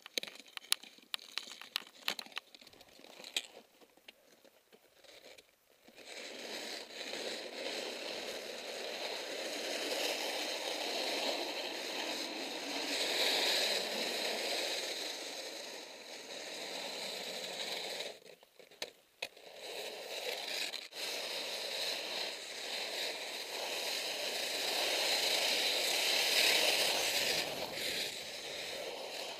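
Skis scraping and sliding on firm, wind-textured snow through turns down a steep chute: a steady rasping hiss with a short break a little past halfway. It is preceded by a few seconds of light clicks and taps.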